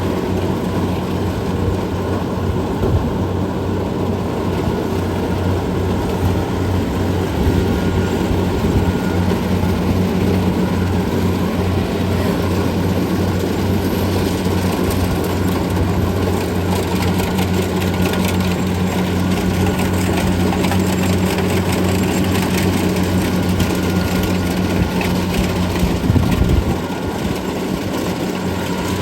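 Kubota DC688Q combine harvester running steadily while cutting rice in a flooded paddy, its diesel engine giving a steady low hum. About 26 seconds in there is a brief louder thud, after which the sound drops a little.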